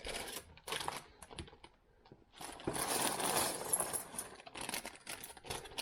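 LEGO pieces clicking, then plastic parts bags crinkling and rustling as they are handled for about three seconds from a third of the way in.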